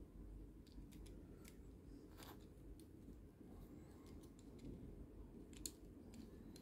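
Faint, scattered clicks of the plastic joints and parts of a small transforming robot toy figure being moved by hand, over a low steady hum. A sharper click comes about two seconds in and another near the end.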